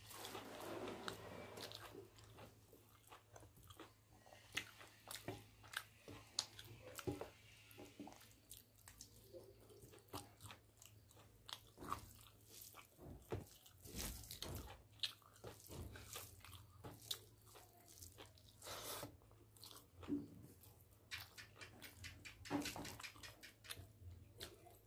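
A person chewing mouthfuls of rice and chicken curry, with fingers mixing rice on a steel plate; irregular small wet clicks throughout.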